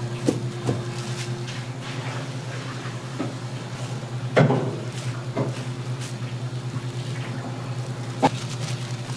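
Steady low electrical hum of kitchen equipment, with scattered knocks and plastic rustles as gloved hands handle a rice-cake slab on a plastic-lined metal tray. The loudest knock comes a little over four seconds in, and a sharp tap comes near the end.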